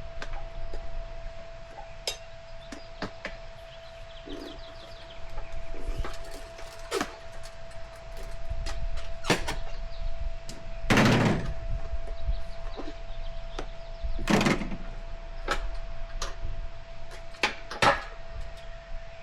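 Tire irons levering a dirt bike tire's bead onto the rim: scattered clicks and knocks of tool on rim, with two heavier thunks past the middle. A faint steady tone runs underneath.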